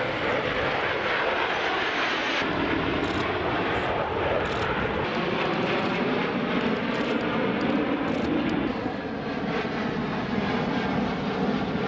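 Military jet aircraft engine noise: a steady, continuous jet roar at an even level.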